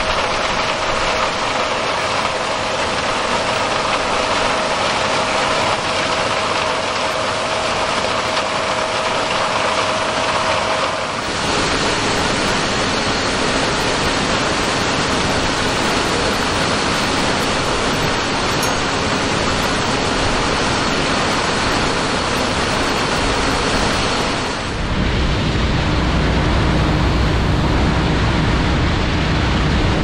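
Corn-harvesting machinery running steadily, a John Deere X9 1100 combine and a tractor hauling a grain cart, under a loud rushing hiss. The sound changes abruptly about 11 and 25 seconds in; the first part carries a steady whine, and the last part is deeper, with a low engine hum.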